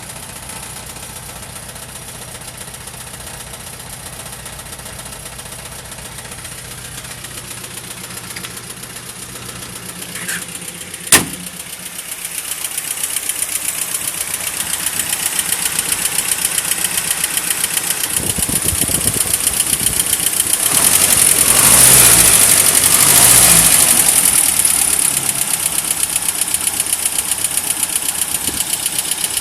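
Land Rover Series III engine running steadily while the cooling system is burped of trapped air. A single sharp click comes about eleven seconds in. After it the engine sound grows louder and busier, and it is loudest about three quarters of the way through.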